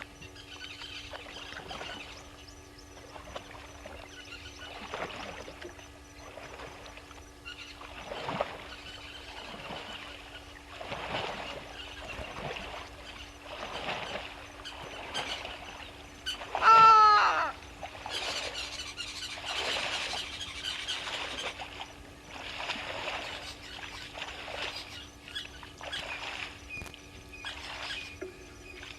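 Waterhole ambience: birds calling on and off over a steady low hum. One loud, short animal call falling slightly in pitch stands out a little past halfway.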